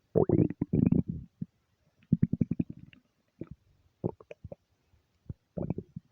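A person's stomach rumbling and gurgling in irregular bursts. A loud gurgle comes right at the start, then a quick run of bubbling pops about two seconds in, then scattered shorter gurgles.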